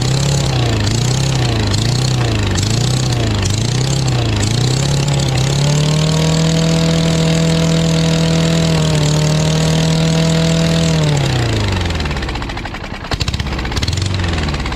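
Small single-cylinder push-mower engine running while starting fluid is sprayed into its carburetor intake. Its speed surges up and down about three times every two seconds, then holds a steady higher speed for several seconds, then slows and nearly dies about twelve seconds in before picking up again at a lower speed. It will not run steadily on its own fuel, which the owner blames on dirt in the carburetor's float bowl.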